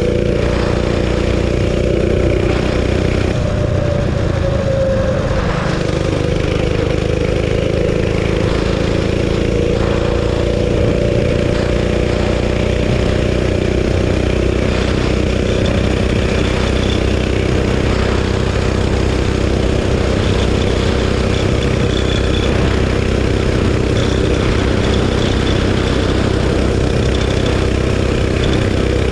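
Realtree RT200 mini bike's 196cc single-cylinder four-stroke engine running steadily at high revs under way. It has a Go Power Sports stage 1 kit, a custom exhaust and its governor spring zip-tied. The engine pitch dips briefly about four seconds in, then holds steady.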